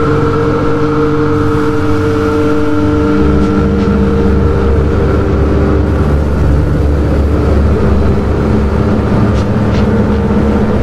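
Loud, dense droning: several held tones over a heavy low rumble, the pitches shifting in steps every few seconds, as in drone or noise music.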